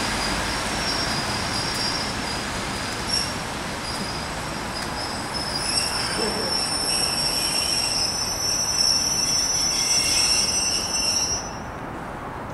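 Passenger coaches of a departing train rolling along the rails with a high-pitched squeal from the wheels. The squeal grows louder and shriller about halfway through, then stops abruptly about a second before the end.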